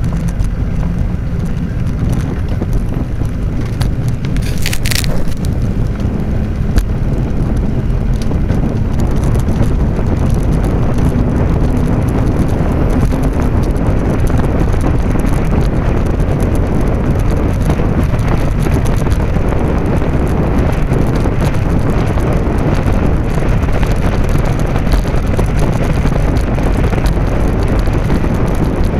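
Wind rushing over the microphone of a camera riding along on a moving bicycle, a loud steady low rumble mixed with rolling noise, with a brief sharp high-pitched sound about five seconds in.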